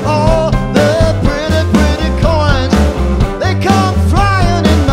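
Live rock band playing: a man sings lead over electric guitars, bass and drums with a steady beat.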